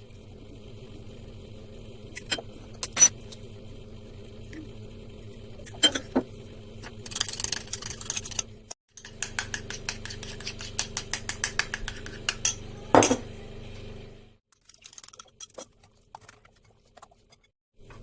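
Utensils clinking against dishes and glass while ingredients are prepared. Single clinks come first, then about halfway through a quick, even run of clinks like a spoon beating something in a cup. A steady low hum runs underneath and stops about three-quarters of the way in.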